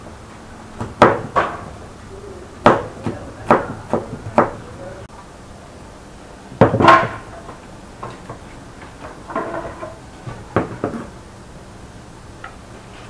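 Kitchen knife slicing garlic cloves on a wooden cutting board: a run of about eight sharp, irregular knocks of the blade on the board. About seven seconds in comes one louder knock, then a few softer knocks.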